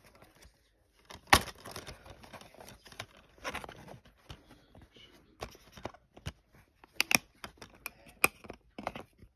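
Plastic DVD case handled and opened, with a sharp snap about a second in and rustling, then several sharp clicks near the end as the disc is pressed and popped off the case's centre hub.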